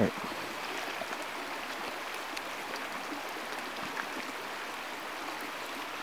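Steady rush of a flowing stream, with a few faint clicks as a dog chews on the head of a raw kokanee salmon.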